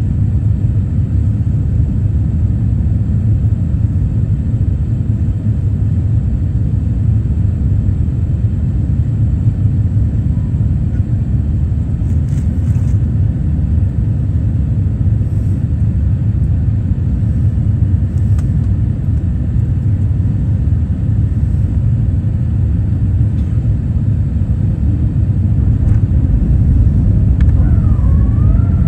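Steady low rumble of jet airliner cabin noise, engines and rushing air, heard from inside the cabin on the approach to landing. Over the last few seconds it grows a little louder and a whining tone that slides up and down in pitch joins it.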